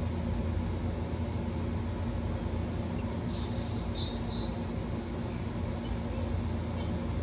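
A small bird chirping: a few high chirps about three seconds in, then a quick run of about five notes, over a steady low hum.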